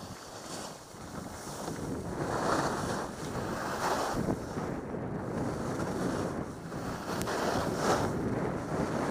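Wind rushing over the microphone of a skier's helmet camera during a fast downhill run, with skis scraping on packed snow in surges every second or so as the skier turns. It grows louder about a second in.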